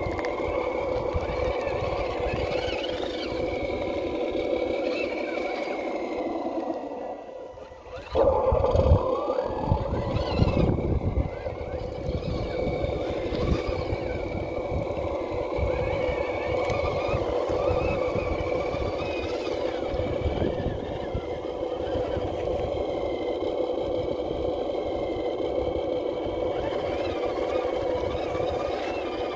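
Radio-controlled six-wheeled truck model running over rough ground: a steady motor and drivetrain whine. About eight seconds in it drops away briefly, then comes back louder and rising for a few seconds.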